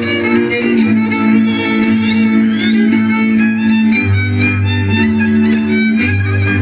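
Hungarian folk dance music led by a fiddle over a steady string accompaniment and bass, with the bass changing note a few times.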